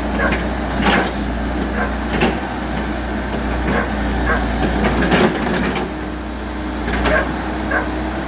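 Komatsu excavator's diesel engine running steadily, with about six sharp knocks and clanks at uneven intervals over it.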